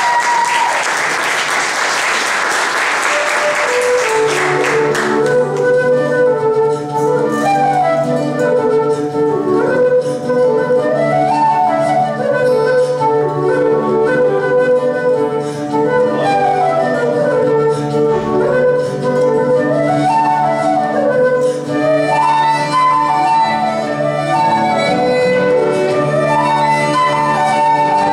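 Audience applause dying away about four seconds in as a folk band plays an instrumental tune: a transverse flute carries the melody, with fiddle, accordion and acoustic guitar and a steady low note underneath.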